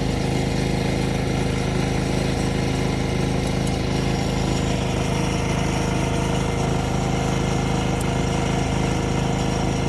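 An engine running steadily at idle, an unchanging hum.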